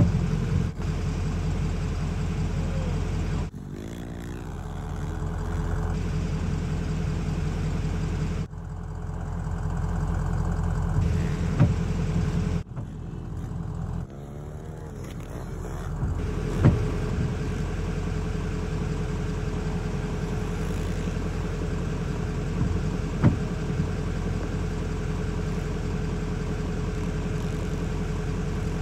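Small single-cylinder four-stroke pit bike engines running and revving on a dirt track, in several cut segments, with a few short sharp knocks.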